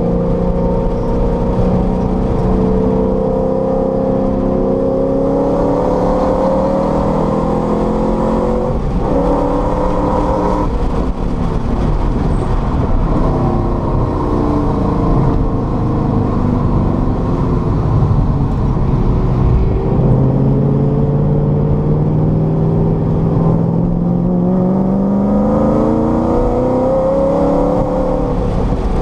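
Car engine under hard driving, heard from inside the cabin: the revs climb steadily, drop about nine seconds in, fall away through the middle, then climb again before dropping near the end.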